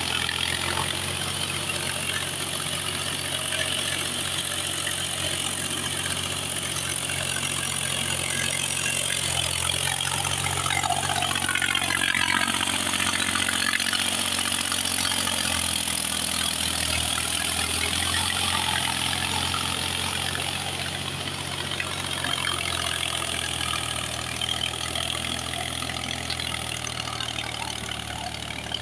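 Mahindra B 275 DI tractor's diesel engine running steadily under load while pulling a cultivator through a flooded paddy. It gets a little louder as the tractor passes close about halfway through, then fades slightly as it pulls away.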